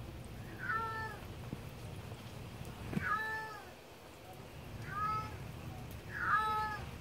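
Calico mother cat meowing four times, long rising-and-falling calls one to two seconds apart. She is calling for her kittens, which have been taken from her.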